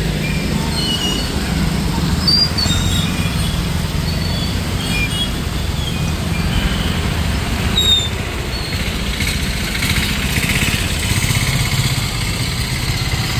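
Motor traffic in floodwater: the engines of scooters, motorcycles and auto-rickshaws running with a steady low rumble as they move slowly through the water, with short high chirps scattered through.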